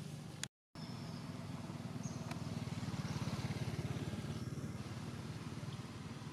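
A small engine running steadily, getting a little louder in the middle and easing off again. The sound drops out completely for a moment about half a second in.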